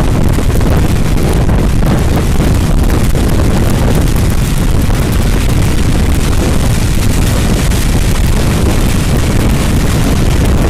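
Strong nor'easter wind, gusting to around 30 knots, buffeting the microphone in a loud, steady rumble, with surf breaking on the beach beneath it.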